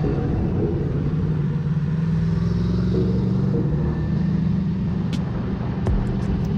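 Motorcycle engine running steadily under way, heard from the rider's position, with wind and tyre noise over it. A few short sharp ticks come in near the end.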